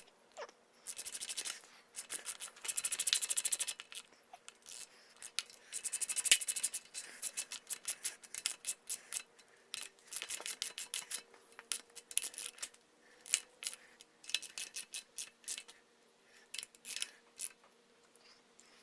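Ratchet wrench clicking in quick bursts as the thermostat housing bolts are run down and tightened, with short pauses between runs.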